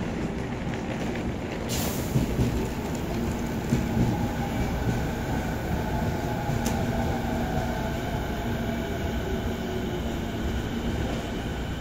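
Steady hum and whine of the E491 series East i-E inspection train's onboard electrical equipment while it stands at the platform, with two short clicks, one about two seconds in and another near seven seconds.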